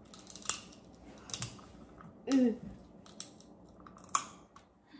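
Lobster being eaten with the fingers, close to the microphone: about five short, sharp crunches and clicks roughly a second apart, with a brief hum about two seconds in.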